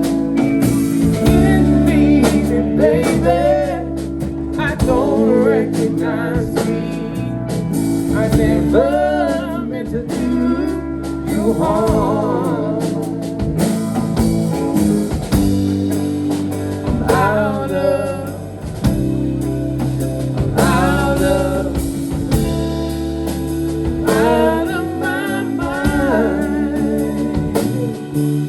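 Live rock band playing a slow song: held low bass and guitar chords that change every few seconds, with a wavering lead melody on top.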